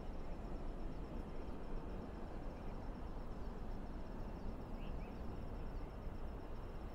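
Steady low rumble with an insect chirping rapidly and evenly high above it, and a faint brief chirp about five seconds in.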